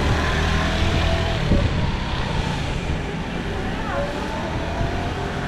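City street ambience: a steady rumble of passing traffic with indistinct voices of passersby, and a single short knock about a second and a half in.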